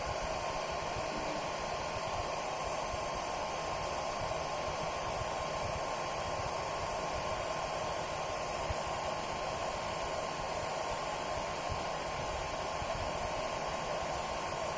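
Small cooling fan running steadily: an even whir with a thin constant whine, unchanging throughout.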